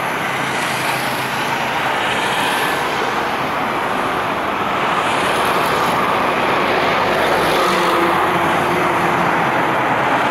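Steady road traffic noise from vehicles passing on a road bridge, growing a little louder about halfway through.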